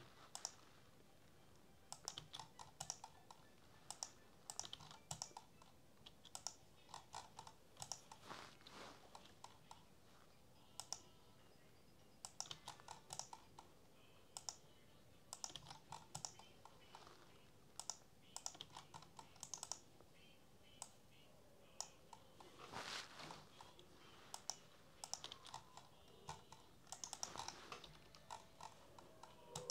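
Faint, irregular clicking and tapping of a computer keyboard and mouse, in small clusters with short quiet gaps, as CAD drafting work goes on.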